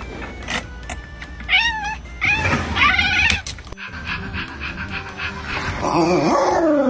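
A puppy's high-pitched whining cries over background music: a short cry about a second and a half in, a longer wavering one just after, and a long falling cry near the end.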